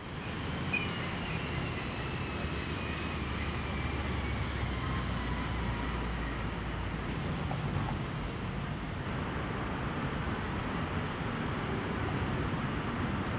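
City street traffic: a steady rumble of car and truck engines with the hiss of passing vehicles, and a faint whine slowly falling in pitch over the first few seconds.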